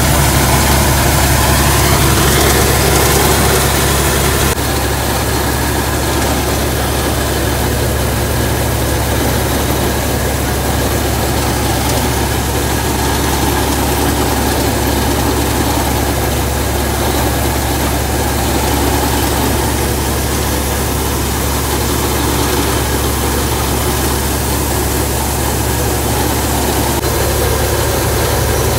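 Combine harvester engine and machinery running steadily as the unloading auger empties threshed sunflower seed; the sound drops a little in loudness about four seconds in.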